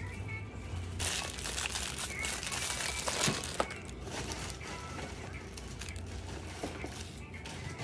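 Clear plastic bags crinkling and rustling as bagged hair claw clips are handled and set down on a counter, with a few light knocks, the loudest about three seconds in.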